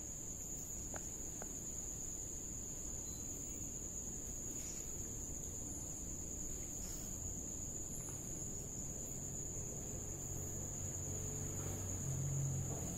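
Crickets chirring in one steady, high-pitched drone. A low hum grows louder over the last few seconds.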